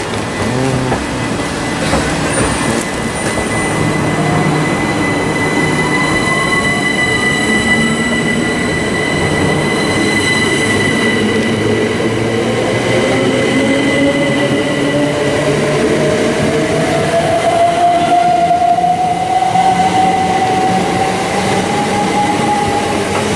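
Southern Class 377 Electrostar electric multiple unit pulling away from a station platform. Its traction motors give a whine that climbs steadily in pitch as it gathers speed, over continuous wheel and rail rumble.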